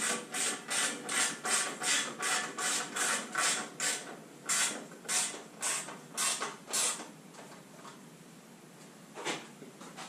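Ratchet handle clicking in repeated back-strokes as a bolt on the lawnmower engine is wound in, about two to three strokes a second, slowing and stopping about seven seconds in, with one more stroke near the end.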